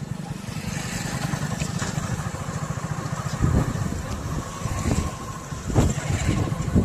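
A motor vehicle's engine running, with a pulsing low rumble and a few sharp thumps in the second half.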